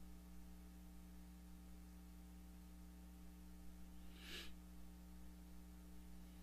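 Near silence over a steady electrical hum from the microphone and sound system, with one short breath into the handheld microphone about four seconds in.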